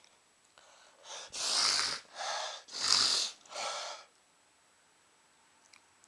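A man's loud breathy nasal bursts, about five in a row over three seconds, the second and fourth loudest, from a nose irritated by sniffed chhinkni sneezing powder.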